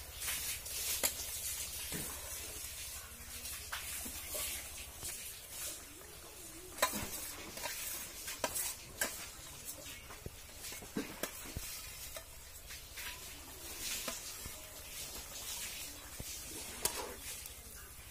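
A flat metal spatula stirring in a steel kadai of simmering fish curry with water lily stems, the curry sizzling and bubbling, with scattered clicks and scrapes of the spatula against the pan.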